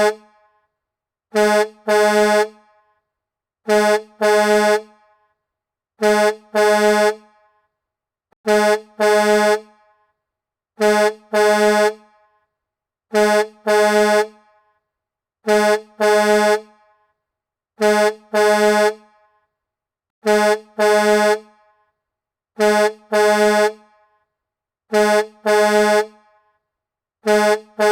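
Semi-truck air horn sounding a chord of several tones in pairs, a short blast followed by a longer one, repeating evenly about every two and a third seconds with silence between.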